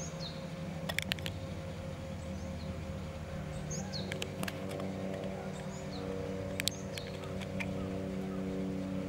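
Several short, high chirps that drop in pitch, a few seconds apart, over a steady hum, with a few sharp clicks, one louder click near the end.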